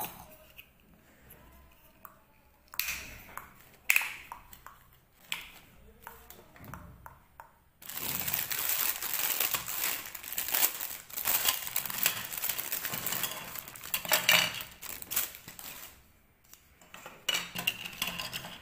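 A few sharp clicks of hard plastic toy parts being handled, then, from about halfway through, several seconds of clear plastic bags crinkling as the toy pieces are pulled out of them.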